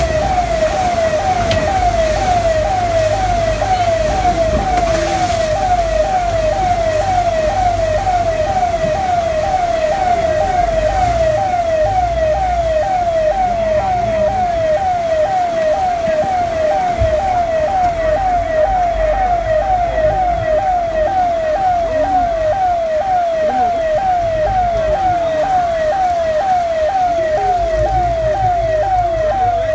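Siren sounding continuously in a fast repeating pattern, each cycle rising in pitch and dropping back, about two a second, over a steady low rumble of traffic or an engine.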